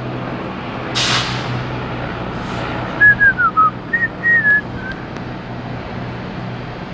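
A person whistling a short run of quick notes that rise and fall, about three seconds in, over a steady low engine hum. A brief hiss comes about a second in.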